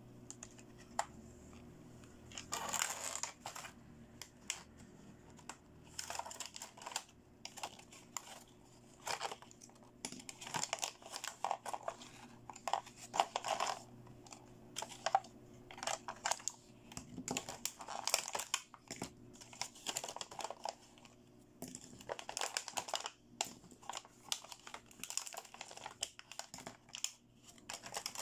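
Clear plastic blister packaging crinkling in irregular bursts as toy accessories are worked out of it, with light clicks of small hard plastic toy pieces being handled and set down.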